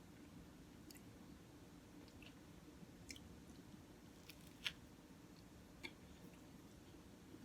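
Faint chewing of a bacon, egg and cheese croissant sandwich, with a few soft wet mouth clicks, one a little louder about two thirds of the way through.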